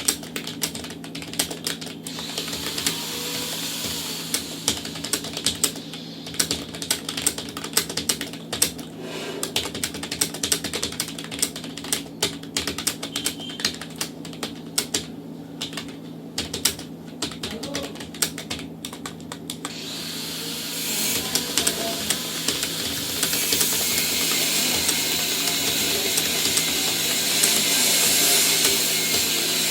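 Fast typing on a computer keyboard, a dense run of key clicks that stops about two-thirds of the way through. A steady hiss then grows louder to the end, over a faint low hum.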